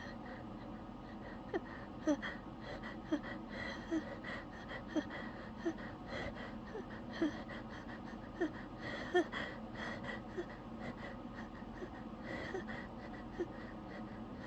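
A person holding back a sneeze: short, sharp catching breaths, each with a brief pitched note, coming irregularly about once a second.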